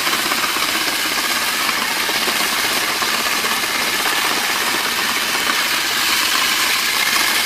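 Electric stainless-steel vegetable chopper running steadily, its motor and spinning blades chopping vegetables.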